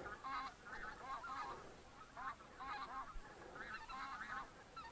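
A flock of wild geese calling: many short honks overlapping one another, faint and constant.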